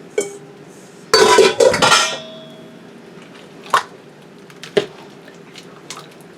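Kitchenware clattering against a metal stock pot as chopped onions are tipped in: a loud clatter lasting about a second, with a ringing afterward. Then come two single knocks, a second apart.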